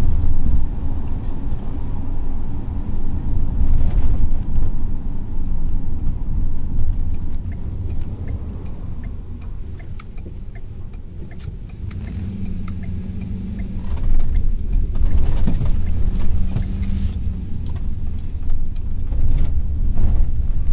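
Low rumble of a moving vehicle heard from inside the cabin. It eases off in the middle, then swells again. A steady low hum comes in twice near the middle, with scattered light clicks and rattles.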